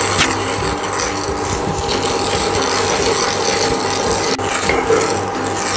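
Wooden spatula stirring dry granulated sugar around a nonstick frying pan, a continuous scraping of sugar crystals against the pan; the sugar is still dry and unmelted.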